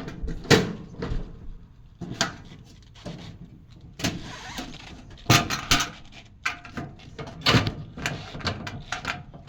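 Metal tool chest drawers sliding on their runners and knocking shut, several times over, with a longer rolling slide about halfway through.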